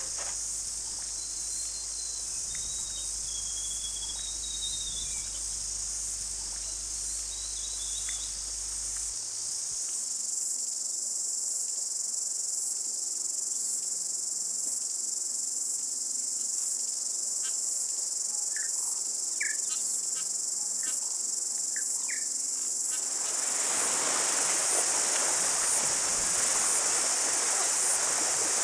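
Dense, steady insect chorus, high-pitched and shrill, with a few faint bird chirps. About twenty-three seconds in, a broader rushing noise rises beneath it.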